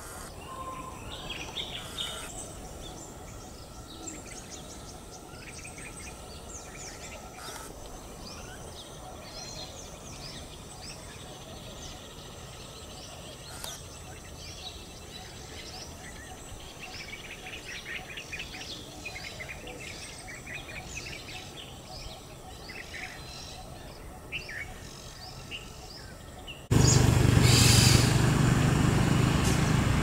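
Many small birds chirping and twittering, short high calls over a steady background hiss. About 27 seconds in the sound cuts abruptly to a much louder steady noise with a low rumble.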